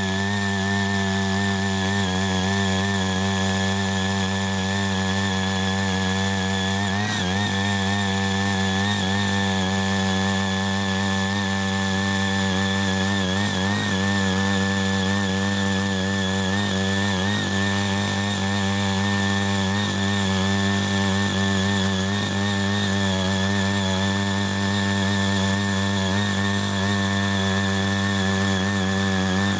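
Small engine of a CY80 mini power tiller running steadily under load as its rotary tines till and weed soil. Its pitch wavers briefly a few times.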